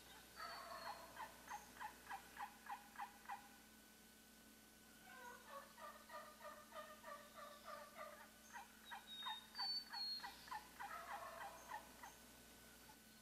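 Three runs of evenly paced hen-turkey yelps from a hunter's turkey call, about four notes a second, with a wild turkey gobbling in answer.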